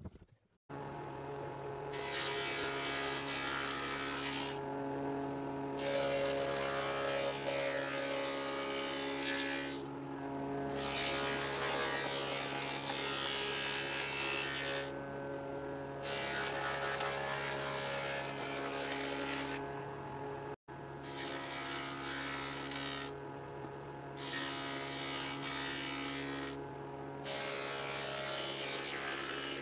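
Woodworking machine's cutter running steadily while the edges of a pine hive box are fed through it to cut rebates. The sound grows louder and harsher in about seven passes of a few seconds each, with the machine running freely between them.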